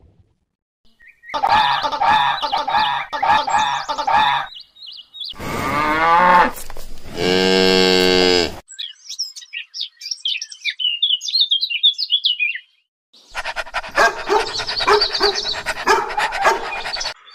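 A string of different animal calls in turn. Repeated pitched calls come first, then a rising call and a long, loud pitched call. High bird chirps follow, and near the end a dense stretch of overlapping calls.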